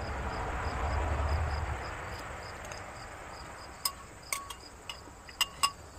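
A cricket chirping steadily, about three chirps a second, while a metal spoon clinks four times against a ceramic soup bowl in the second half. A rushing noise fades away over the first two seconds.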